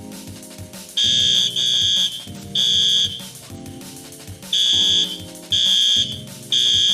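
Fire alarm sounding a high-pitched temporal-3 (code 3) evacuation pattern: three half-second beeps, a pause, then three more, starting about a second in.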